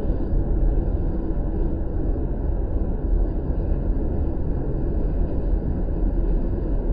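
Tornado wind blowing: a steady low rumble.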